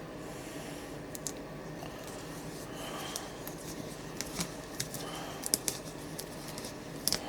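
Scattered small clicks, taps and rubbing from a knife and cleaning cloth being handled on a bench, the sharpest clicks about five and a half seconds in and just before the end, over a steady low hum.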